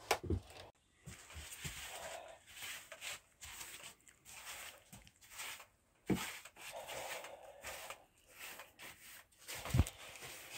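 Long-handled broom sweeping dust off OSB loft boards in repeated scratchy strokes, with a dull footstep thump on the boards about six seconds in and another near the end.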